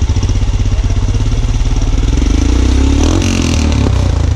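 Royal Enfield Himalayan's 411 cc single-cylinder engine running through an aftermarket PoweRage exhaust, idling with even pulses, then revved briefly about two to three seconds in.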